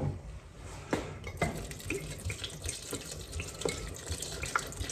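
Port wine poured from a glass bottle into a large pot of chopped fruit, with the liquid splashing and the bottle glugging in short, irregular pulses.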